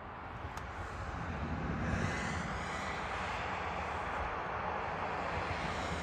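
Road vehicle noise: tyres and engine rushing steadily, growing louder about two seconds in.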